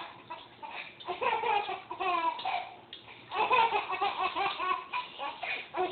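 A baby giggling and laughing in short bursts with brief pauses between.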